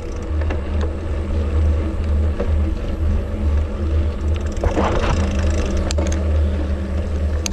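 Steady low rumble of wind on the microphone and bicycle tyres rolling over a rough concrete path while riding a mountain bike.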